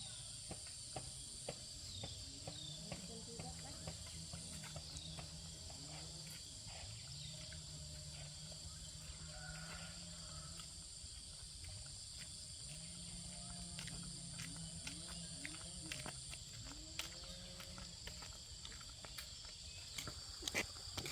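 Insects, crickets or cicadas, singing steadily at two high pitches, with scattered small clicks and knocks.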